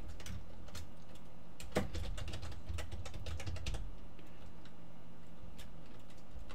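Typing on a computer keyboard: quick runs of key clicks, with one louder keystroke just under two seconds in and sparser clicks toward the end, over a steady low hum.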